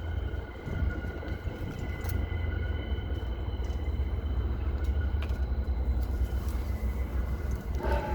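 Wind buffeting the microphone: a fluttering low rumble that never lets up, with a few faint steady high tones above it.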